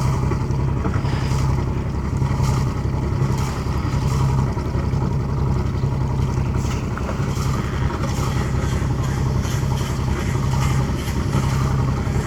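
A boat's engine running steadily at a low, even pitch.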